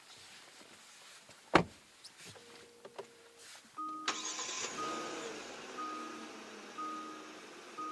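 A heavy car door shuts with a single loud thump about one and a half seconds in. From about four seconds in, the car's two-tone warning chime sounds about once a second, and a steady rush of noise comes on suddenly and slowly fades a little.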